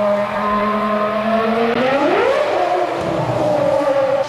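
Ferrari F300 Formula One car's V10 engine running at steady revs, then rising sharply in pitch about two seconds in as it accelerates, before settling back to a steadier note.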